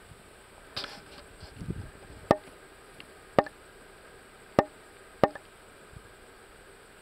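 Four sharp clinking knocks with a short metallic ring, about a second apart, keeping a walking rhythm: footsteps with gear knocking as a man walks downhill carrying a ram on his shoulders. A softer rustle comes about a second in.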